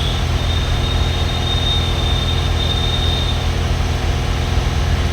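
Mahindra Bolero Power Plus BS6's three-cylinder diesel engine running steadily at raised speed while a forced service regeneration of the exhaust aftertreatment is carried out. A thin high whine sits over the engine for the first three seconds or so, then fades.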